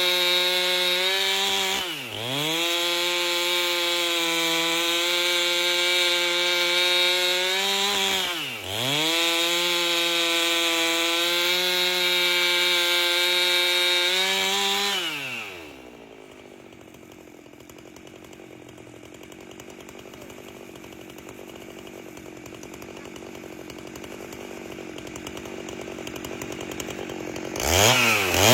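Chainsaw with a 30-inch bar running at high revs, ripping an albasia log lengthwise, its pitch dipping sharply and recovering twice. About halfway through it drops to a low idle, then revs up again near the end.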